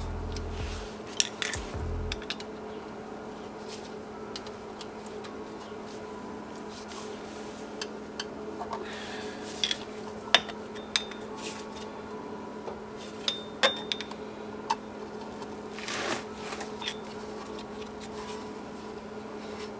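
Scattered metallic clicks and clinks as the drum-in-hat parking-brake shoes' springs and hold-down hardware are worked into place on the backing plate. A few dull thumps come in the first two seconds, over a steady low hum.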